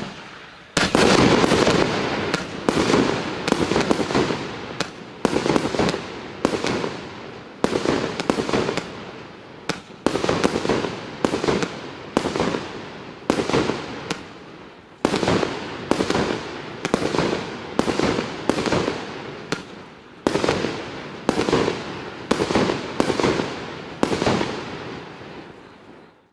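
A 25-shot consumer firework cake firing shot after shot, a sharp bang roughly every second, each trailing off in a fading noisy tail, until the sequence ends near the end.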